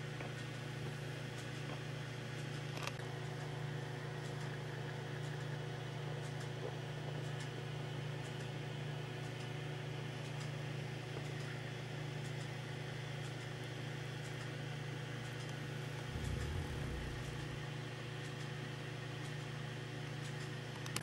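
A steady low hum with a faint hiss and a few faint clicks, and a brief low rumble about sixteen seconds in.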